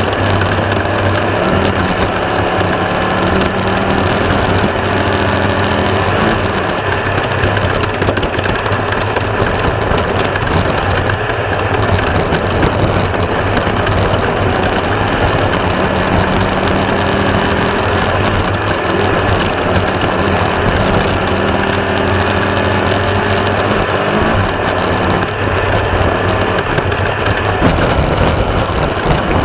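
Class 1/2-1600 off-road race buggy's air-cooled Volkswagen 1600 engine running hard, its pitch rising and falling as it accelerates and changes gear. A dense rattling clatter from the car runs under it.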